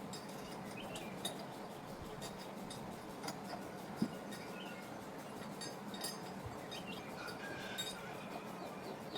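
Faint bird chirps over a low steady hum, with a few light clicks and a single knock about four seconds in.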